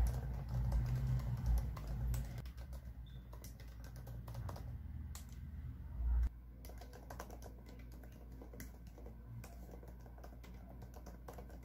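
Typing on a laptop keyboard: a quick, uneven run of soft key clicks. A low rumble underlies the first two seconds, and a short dull low thump comes about six seconds in.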